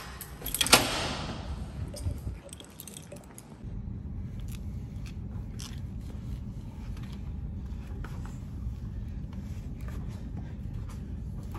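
A sharp knock with a rustle about a second in, like the phone being handled and set down, then a steady low hum of a gym room with scattered small clicks and rustles as a person moves on an exercise mat.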